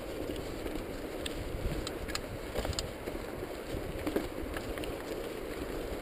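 Mountain bike rolling down a rocky dirt trail: a steady rumble of knobby tyres over dirt and stones, broken by irregular sharp clicks and rattles.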